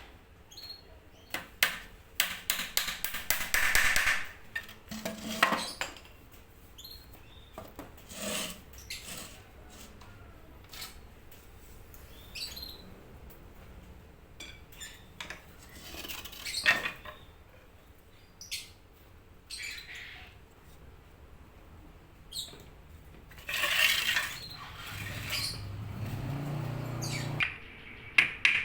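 Light clicking, knocking and clattering of bird-cage parts being handled and fitted together, with a quick run of rattling clicks early on. Birds chirp now and then, and a low hum comes in briefly near the end.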